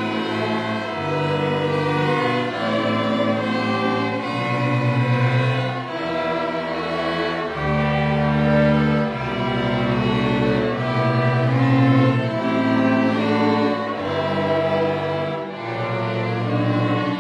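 String orchestra playing, with violins over a cello bass line of sustained notes that change every second or two.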